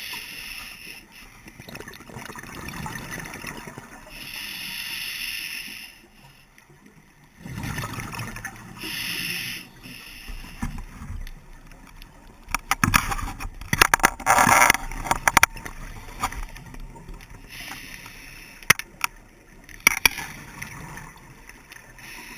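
Scuba diver breathing underwater through a regulator. Several long hissing inhalations come a few seconds apart, then a louder gush of crackling exhaled bubbles a little past the middle, with scattered bubble clicks after it.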